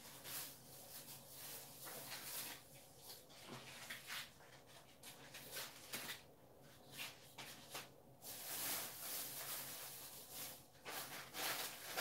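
Faint handling noises of a plastic water bottle and a small humidifier: scattered light knocks and rustles, with a steadier hiss for a couple of seconds near the end.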